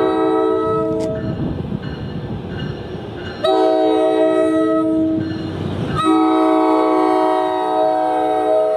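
Commuter train locomotive's air horn sounding a multi-note chord in long blasts for a grade crossing: one blast ends about a second in, another runs from about three and a half to six seconds, and a third starts right after it and holds on. Between blasts the rumble of the approaching train is heard.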